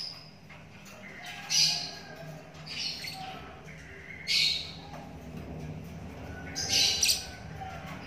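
A 24-day-old lovebird chick giving short, high-pitched calls, about five of them a second or so apart, the last one doubled. A faint steady low hum runs underneath.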